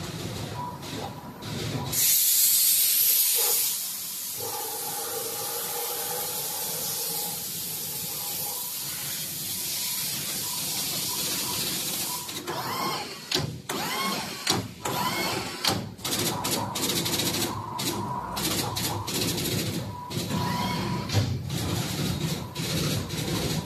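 Industrial machinery sounds: a loud burst of air hiss about two seconds in, then a steady mechanical hum, and from about halfway on a run of irregular sharp clicks and knocks.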